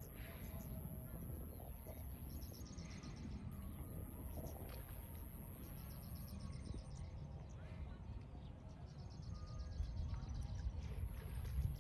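Open-field ambience: a steady low wind rumble, with stretches of rapid, high-pitched pulsed chirping that come and go. The rumble grows a little louder near the end.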